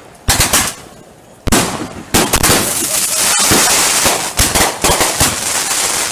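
Consumer fireworks going off at close range: sharp bangs and crackling, one about a third of a second in, more at about one and a half and two seconds, then a dense run of rapid reports for about three seconds that tails off near the end.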